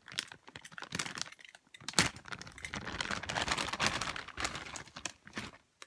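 Clear plastic packaging bag crinkling and crackling as it is handled and pulled open, with a sharp crack about two seconds in.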